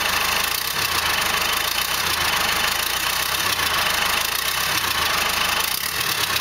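Cummins 4BT 3.9-litre four-cylinder turbo diesel idling steadily on its second start after being installed, running with no exhaust or turbo plumbing connected.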